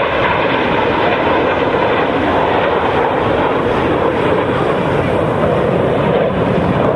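Jet engines of the Frecce Tricolori formation, Aermacchi MB-339 jet trainers, flying overhead: a steady, loud jet noise with no breaks.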